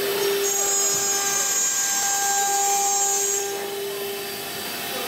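Twin spindles of a two-head CNC router whining steadily as their bits carve a wooden door panel. A higher-pitched cutting noise joins from about half a second in and fades about three and a half seconds in.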